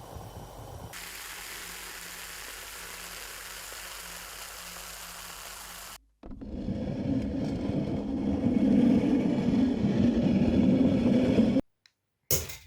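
Carbonated soda fizzing: a steady high hiss of bubbles, then after a short break a louder, lower bubbling rush that grows and stops abruptly near the end.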